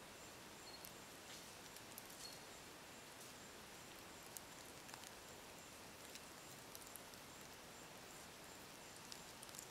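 Near silence: faint outdoor background hiss, with a faint high pulsing tone throughout and a few soft scattered ticks.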